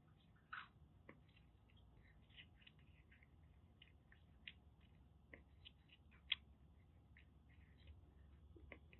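Kitten eating dry kibble from a bowl: faint, irregular crunching and clicking, with one sharper click about six seconds in.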